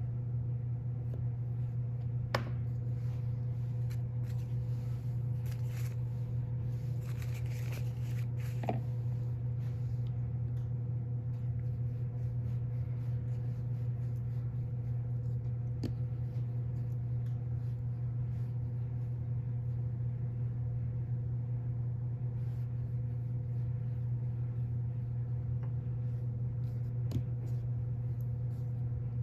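A steady low hum with a fainter steady tone above it throughout, with paper rustling from about four to ten seconds in and a few light clicks and taps of tools and hands on the work board.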